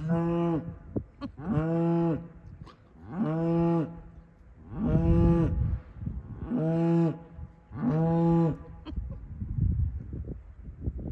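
Cattle mooing: one animal calling six times in a row, each moo about a second long and coming roughly every second and a half to two seconds, all at much the same pitch.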